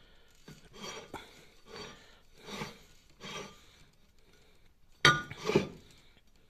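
Cylinder liner from a Zetor repair kit being turned over in the hand, its metal surface rubbing in a run of soft rasping swishes. About five seconds in come two louder metallic knocks, one with a brief ring, as the liner touches the other parts.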